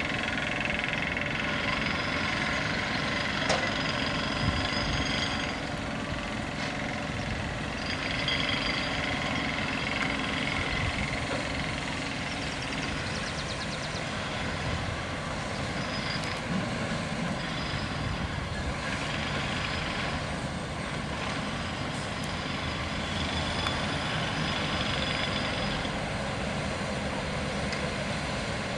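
Heavy construction machinery and trucks working: a steady engine rumble, with high steady tones lasting a few seconds at a time, coming and going several times.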